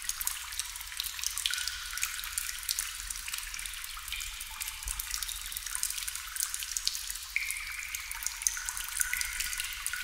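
Water drops falling into water: many quick drips at irregular times, several a second, some with a short ringing plink.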